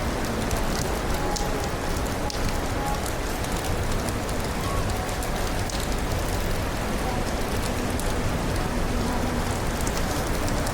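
Steady rain falling and pattering on surfaces: an even hiss with scattered drop clicks.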